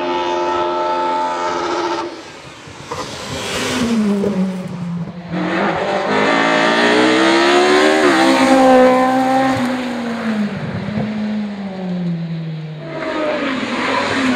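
Opel Kadett C rally car's engine under hard acceleration, its pitch dropping sharply about two seconds in at a lift or gear change, then climbing again and falling slowly away through the rest.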